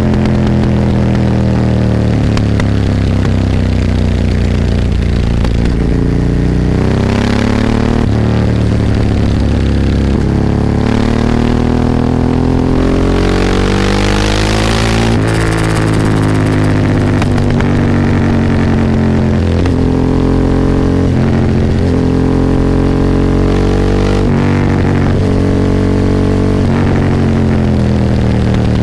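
Ducati 998's 90° L-twin engine heard onboard under way, the revs rising and falling repeatedly. Near the middle it climbs through a run of gears with short breaks at each shift, then drops away in a long fall.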